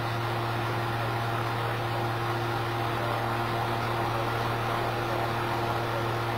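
Electric fan running steadily: an even rush of air over a constant motor hum.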